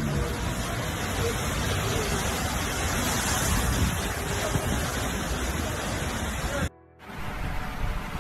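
Steady heavy rushing of hail-laden floodwater pouring through a street, on a phone microphone. It drops out briefly near the end at an edit, then the rushing resumes.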